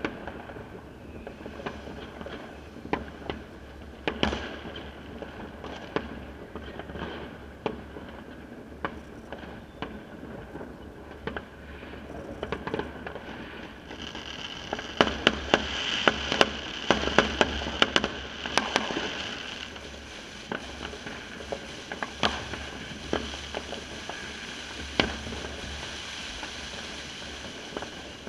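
Fireworks and firecrackers going off in many places: sharp bangs scattered throughout, coming thick and fast for a few seconds in the middle along with a high hiss.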